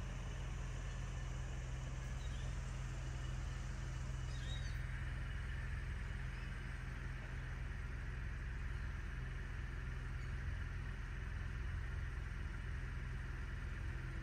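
A steady low rumble that holds level throughout, with a few faint bird chirps about three to four seconds in.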